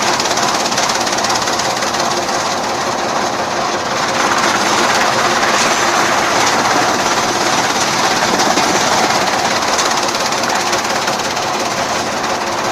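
Arcnut chaff cutter running, a loud, steady mechanical rattle with a fast, even rhythm.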